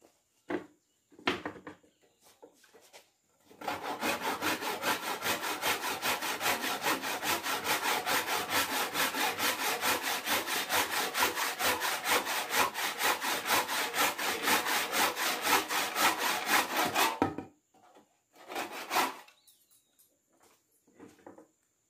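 Hand saw cutting across a hard wooden slat in quick, even back-and-forth strokes for about fourteen seconds, stopping abruptly as the cut goes through. A few knocks of the board being set in place come before the sawing.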